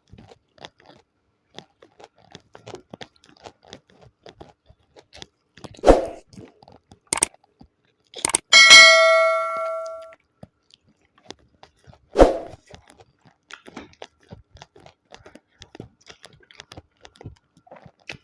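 Close-miked chewing and small mouth clicks from eating spicy chicken feet, broken by a few knocks of tableware. About halfway through, a hard clink rings out with a bright metallic tone and fades over about a second and a half.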